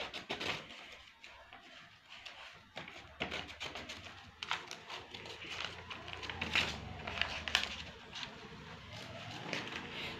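Paper being handled and cut with scissors for a heart-shaped paper bookmark: irregular snips, crinkles and rustles.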